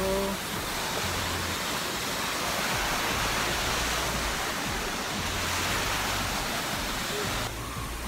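Water rushing over a small rocky cascade and down a stream: a steady, even rush that eases off a little near the end.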